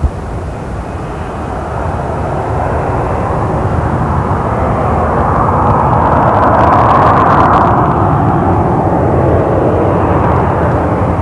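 Boeing 737-800's CFM56 turbofan jet engines running as the airliner rolls past on the ground, a steady jet noise that grows louder to a peak about seven seconds in and then eases off slightly.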